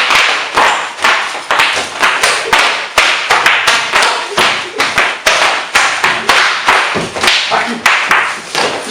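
A loud, steady run of sharp percussive hits, about three a second, like rhythmic claps or taps.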